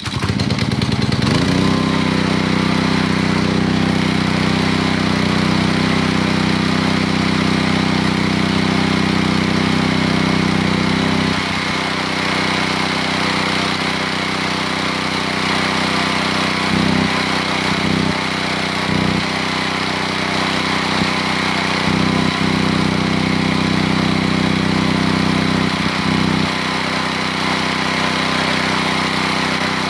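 Honda four-stroke engine on a gas pressure washer pull-started with the recoil cord, catching at once and revving up within about a second, then running steadily, with a few brief dips in its sound later.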